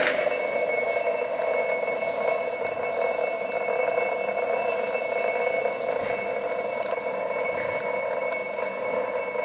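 Replica Otto & Langen atmospheric free-piston gas engine running, a steady mechanical whir with thin high ringing tones over it and no firing bang in this stretch: the engine is coasting on its flywheels between power strokes.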